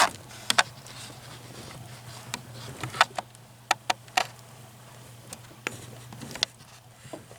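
A few light, sharp clicks and taps, scattered irregularly through several seconds, over a steady low hum: small parts or wiring under a car's dashboard being handled.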